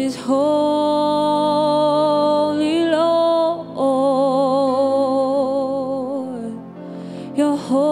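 A woman singing a slow worship song into a microphone in two long phrases of held, wavering notes, with a short break about three and a half seconds in, over steady low accompaniment.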